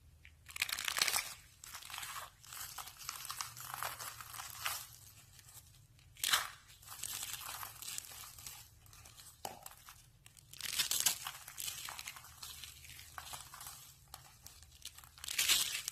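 Dry rolled soap curls crunching and crumbling as they are crushed by hand, in bursts of crisp crackling with the loudest about a second in, around six seconds, around eleven seconds and near the end.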